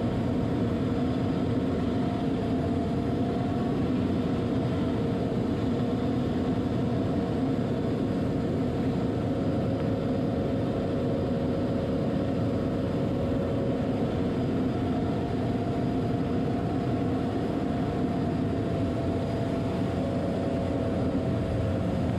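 Steady drone of a Cessna 206's Soloy-converted Allison turbine engine and propeller on final approach, with a few steady tones held throughout.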